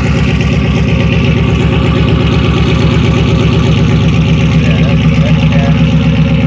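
A 2007–2014 GM truck's engine idling steadily through an exhaust with gutted catalytic converters, stock manifolds, and the resonator and muffler cut out. The result is a loud, even, pulsing exhaust note.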